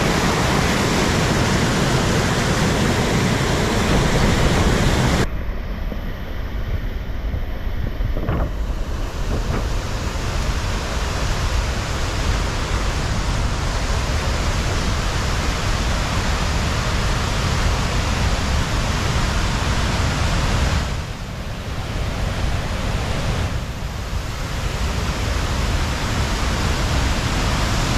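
Steady rush of rain-swollen falling water from a waterfall. It thins out and drops a little for a few seconds about five seconds in, and again about three-quarters of the way through.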